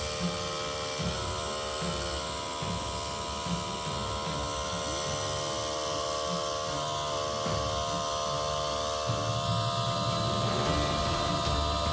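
Rotary snowplow train with its pushing diesel locomotives running past, a steady mechanical drone of several held tones over a rough low rumble as the rotary cuts and throws snow, growing a little louder near the end.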